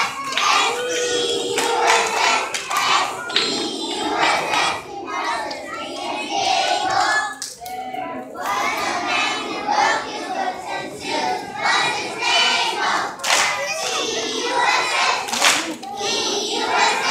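A group of young children singing together in unison, with scattered hand claps.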